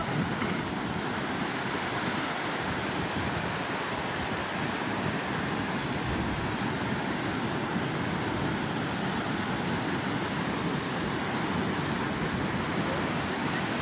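Steady rushing outdoor background noise, even throughout, with no distinct events standing out.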